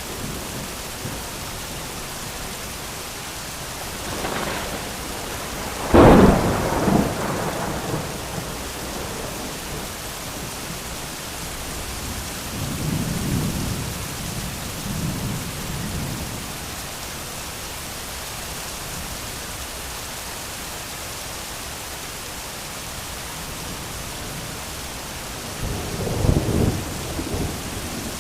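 Thunderstorm: heavy rain falling steadily while thunder rolls several times. A sharp, loud clap about six seconds in is the loudest, with softer low rumbles in the middle and another rumble building near the end.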